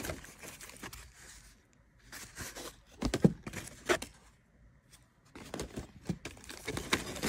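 Carded Pez dispensers in plastic blister packs being handled and shuffled: scattered crinkling of plastic and card with a few sharp clicks and taps, quieter for a moment about halfway through.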